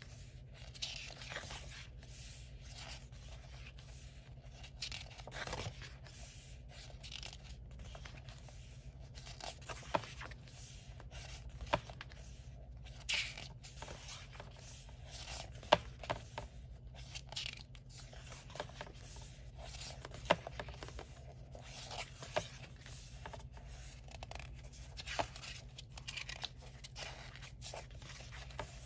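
Pages of a hardcover sticker book being turned and smoothed down by hand: stiff paper swishing and rustling, with a few short sharp clicks spread through.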